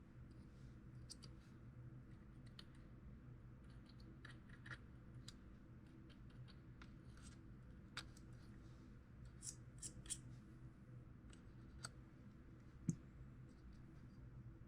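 Near silence with a steady low hum and faint, scattered clicks and light taps from pistol parts being handled and oiled during cleaning. The most distinct ones come about 8, 10 and 13 seconds in.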